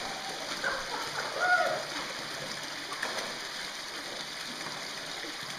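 Water sloshing and splashing around a person wading through a deep creek pool, over a steady rush of running water.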